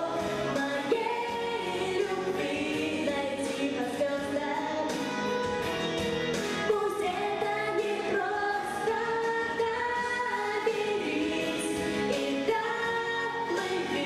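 A teenage girl singing a song into a handheld microphone, her voice amplified over a musical accompaniment, with sustained and gliding sung notes.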